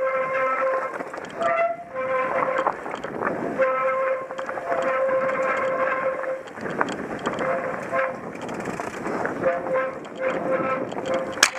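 Mountain bike rolling fast down a rocky dirt trail, the tyres rumbling over gravel, with a steady squealing tone from the bike that cuts in and out every second or two. A sharp click comes near the end.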